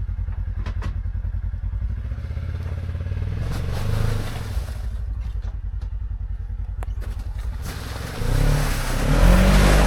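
Polaris side-by-side UTV engine idling with a fast, even pulse and a few light clicks. It picks up briefly about four seconds in, then revs up hard near the end as the stuck machine tries to power out of deep snow.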